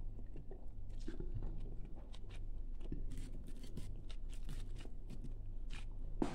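Someone eating: faint chewing and scattered small clicks as rice and greens are worked by hand on a plate, over a steady low hum.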